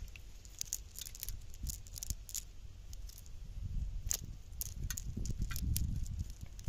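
Cast net being lifted and shaken by hand, its weighted bottom edge clinking and rattling in irregular sharp ticks over a low rumble.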